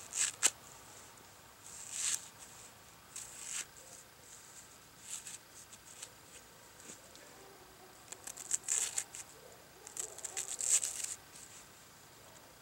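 Sheath knife slicing through a peeled raw onion on a wooden stump: short, crisp cutting sounds at irregular intervals, with quicker runs of cuts around nine and eleven seconds in.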